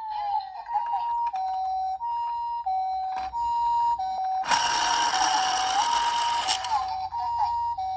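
Ambulance hi-lo two-tone siren in the Japanese 'pii-poo' pattern from a toy minicar ambulance, switching evenly between a high and a low tone about every two-thirds of a second. Midway a burst of rushing noise covers it for about two seconds and ends with a click.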